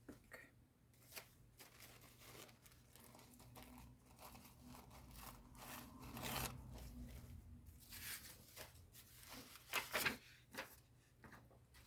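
Paper being handled and torn: a run of short rustling, crinkling and tearing strokes, loudest about six seconds in and in two sharp tears near ten seconds.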